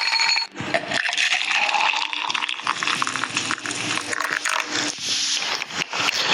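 Eating sounds: dense, crackly chewing and crunching with many quick clicks, loud and close.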